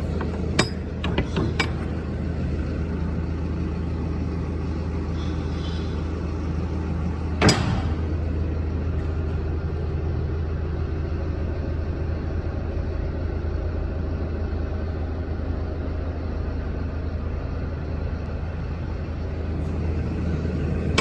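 Hino 300 Series truck's diesel engine idling steadily. Metal clicks from the rear-door lock-rod latch come in the first couple of seconds, and one sharp metallic knock falls about a third of the way through.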